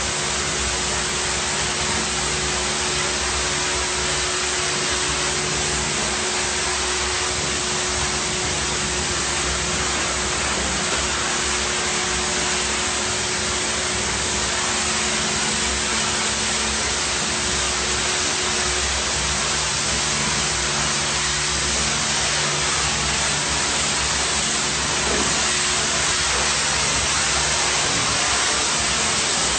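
DOFF superheated-steam cleaning lance spraying a soot-covered wall: a loud, continuous hiss, with a steady low machine hum underneath.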